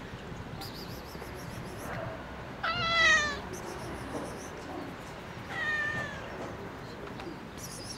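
Tuxedo cat meowing twice, begging for food: a loud meow falling in pitch about three seconds in, then a softer, shorter one near six seconds.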